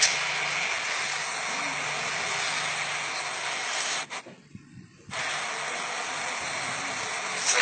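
Steady hiss with no pitch, cutting out suddenly for about a second midway and coming back just as suddenly.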